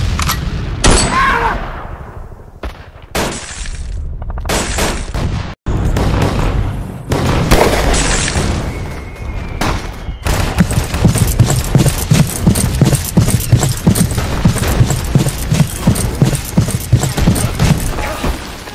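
Gunfire: separate shots and short bursts with gaps between them, then from about halfway a long stretch of rapid, sustained machine-gun fire.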